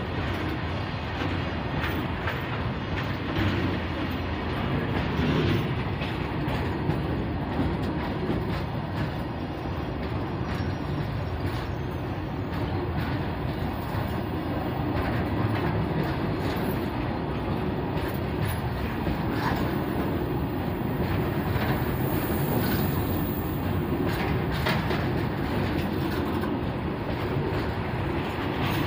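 Freight train of open-top wagons rolling past close to the track: a steady rumble of wheels on rail, with repeated clicks and clacks as the wheels cross the rail joints.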